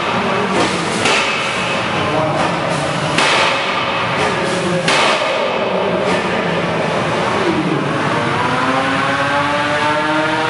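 Small electric combat robots in an arena: motors whining, with a few sharp knocks of robots striking each other or the arena in the first five seconds. In the second half a whine rises slowly in pitch as a motor speeds up.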